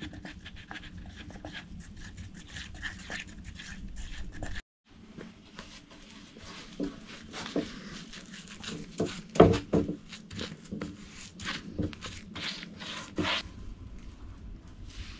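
A wooden stick scrapes and taps against a plastic tub while two-part epoxy is stirred. After a sudden break, a brush works epoxy onto a table's bark edge, making irregular scrapes, dabs and knocks, with one louder knock near the middle.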